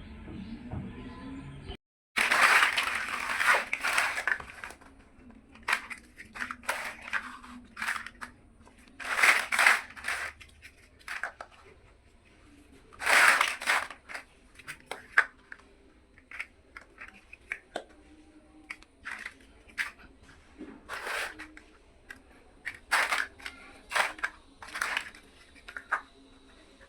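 Plastic building blocks being handled and pressed together: many short sharp clicks, with a few longer bursts of rustling and crunching handling noise.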